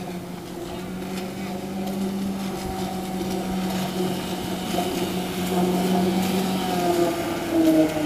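Small outboard motor pushing an inflatable boat at speed with a steady drone. It grows louder as the boat comes closer, and its pitch drops near the end as the boat passes.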